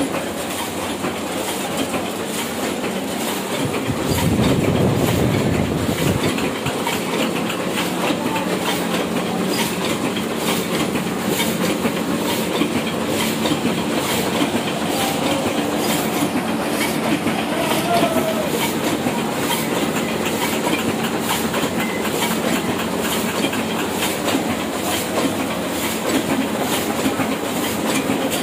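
Old Hashimoto sheet-fed offset printing press running, a steady rhythmic mechanical clatter. About four seconds in, a louder low rumble lasts for a couple of seconds.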